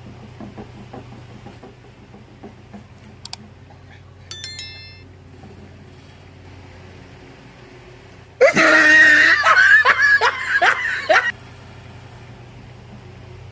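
A child's high-pitched laughter bursts out about eight seconds in and lasts about three seconds, the loudest sound here. Before it come faint clinks and scrapes of a knife and fork on a plate, and a click followed by a short electronic chime.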